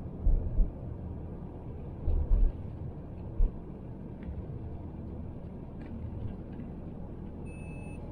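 Cabin noise of a Great Wall Hover H3 on the move: a steady low rumble of engine and road, with a few dull thumps in the first few seconds. A short high-pitched tone sounds near the end.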